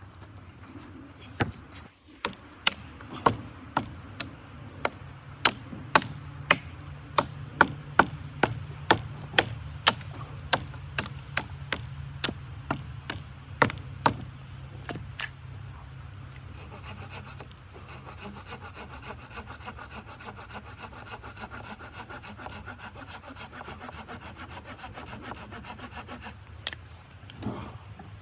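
Wood being sawn by hand: a run of sharp, regular strokes about two a second for the first half, then a steadier rasping cut.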